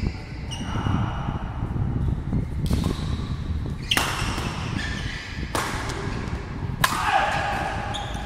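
Badminton rackets striking a shuttlecock four times, about one and a half seconds apart, with each hit echoing in the large sports hall. Short squeaks of shoes on the court floor come between the hits.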